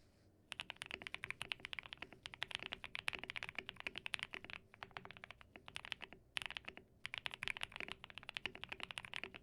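Fast typing on a QK65 mechanical keyboard fitted with NovelKeys Cream+ linear switches with titanium inserts: a rapid, dense run of keystroke clacks, with a short pause about six seconds in.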